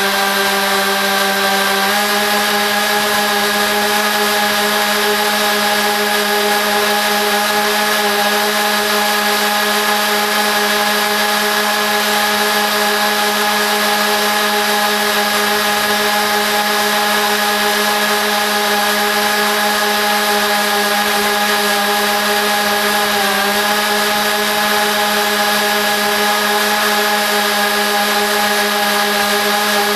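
Lawn mower engine running steadily, sped up fourfold into a high-pitched drone over a hissing wash. Its pitch steps up slightly about two seconds in and dips briefly near the end.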